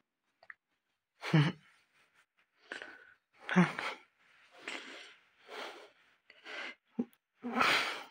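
A series of short, breathy sounds, like breaths or sighs, about one a second, a couple of them with a slight voiced edge.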